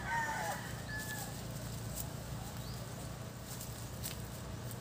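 A rooster's crow trailing off and falling in pitch in the first half second. After it comes a low steady outdoor rumble with a few faint short chirps and light clicks.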